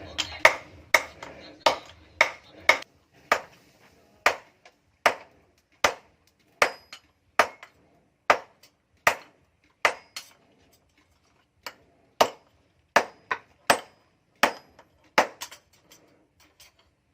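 Metal hammer blows on an axe head at the anvil during forging, struck in a steady rhythm: about two blows a second at first, slowing later, with a short pause about ten seconds in. Some blows ring briefly.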